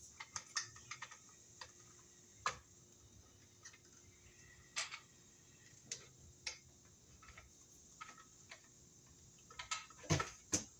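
Irregular light clicks and taps of 10/2 cable being pushed through the connector into a weatherproof electrical box, with a short cluster of louder knocks near the end.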